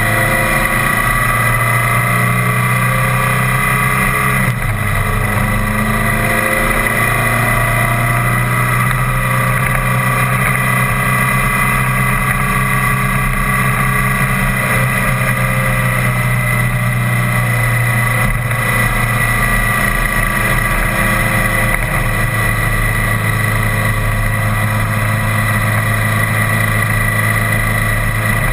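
Vehicle engine running steadily while driving at road speed; the engine note shifts briefly about four and a half seconds in.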